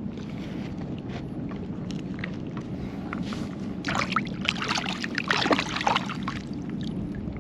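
Shallow bay water splashing and sloshing in a cluster of bursts from about four to six seconds in, over a steady low rumble.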